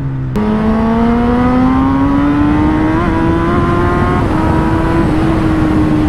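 Kawasaki Ninja ZX-10R inline-four engine heard from the rider's seat while under way. The note climbs slowly as the bike gains speed, then holds steady, over a constant rush of wind. The sound cuts in abruptly just after the start.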